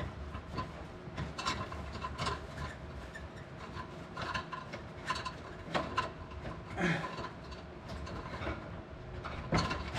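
Scattered light clicks, taps and rubbing from hands and tools working on a pickup truck's plastic underbody covers and their fasteners.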